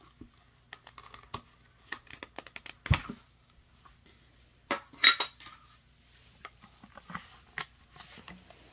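Metal end cap being worked off a cardboard poster tube and handled: a string of light clicks and scrapes, a louder knock about three seconds in, and a ringing metallic clink about five seconds in.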